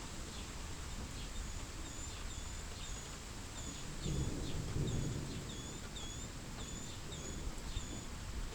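A bird chirps repeatedly, short calls about twice a second, over steady outdoor background noise. A brief low rumble comes about four seconds in.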